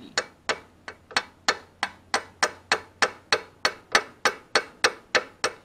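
Hammer blows on a socket used as a driver, seating a clutch pilot bearing into the flywheel centre of a Subaru Forester: sharp metallic taps with a short ring, in a steady rhythm of about three blows a second.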